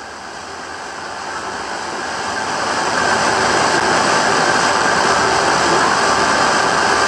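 Engines of a pack of dirt late model race cars and a pace semi-truck running at pace-lap speed. The sound swells over about three seconds as the field approaches, then holds as a steady drone.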